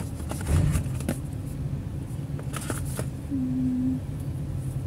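Unboxing handling sounds: a few light clicks and rustles of the phone box and its packaging over a steady low background rumble, with a short steady hum a little after three seconds.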